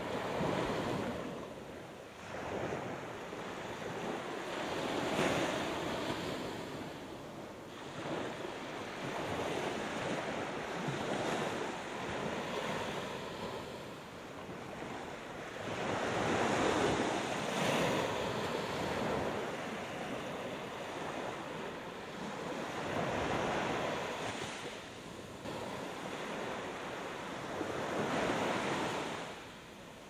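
Small Gulf of Mexico waves breaking on a sandy beach. The surf rushes, swelling and fading every few seconds.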